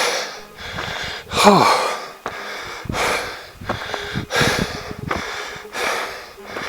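A hiker breathing hard, winded from the climb: about five heavy breaths, roughly one every second and a half, one of them with a short falling, voiced sigh.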